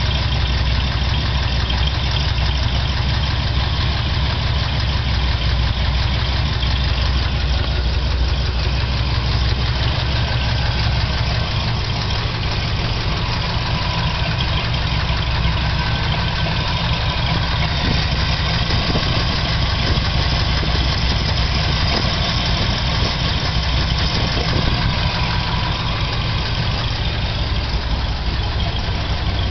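Chevrolet 396 big-block V8 idling steadily with a ticking that the owner suspects comes from a cylinder head; a valve adjustment has not cured it.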